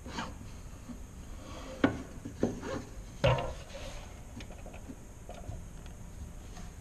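A wooden board being shifted and rubbed against a miter saw's fence and table, with three sharp knocks of wood on the saw in the first half. The saw motor is not running.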